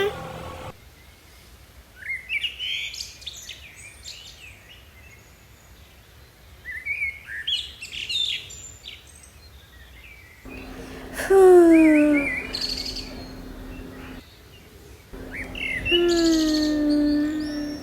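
Birds chirping outdoors in short scattered bursts. Two louder drawn-out animal calls, falling in pitch, come about two-thirds of the way through and near the end, over a steady low hum.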